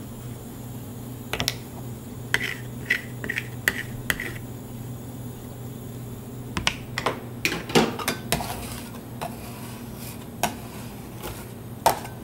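Metal spatulas tapping, clanking and scraping on a cold stone plate as ice cream is chopped and mixed. There is a run of quick ringing taps about two seconds in, a cluster of sharper knocks in the middle and single knocks near the end, all over a steady low hum.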